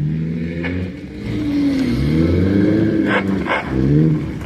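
Demolition derby car engines revving, the pitch repeatedly climbing and falling as the cars accelerate and back off. There is a brief lull about a second in, then two short sharp sounds about three seconds in.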